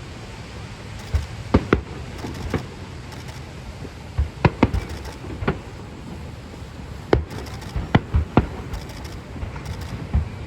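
Aerial fireworks shells bursting: about a dozen sharp booms at irregular intervals, some in quick pairs, over a steady background noise.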